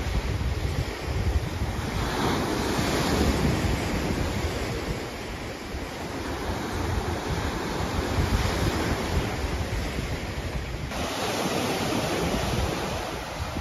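Lake waves breaking and washing up on a sand beach, with wind rumbling on the microphone. The low wind rumble eases about eleven seconds in.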